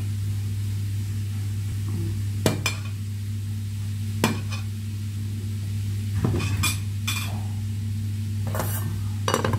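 A metal spoon scooping rice and clinking against a ceramic plate and cooking pot, with sharp clinks every second or two over a steady low hum.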